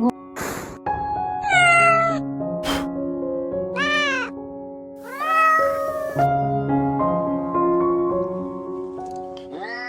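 A cat meowing three times, each call arching and then falling in pitch, over background music with sustained notes.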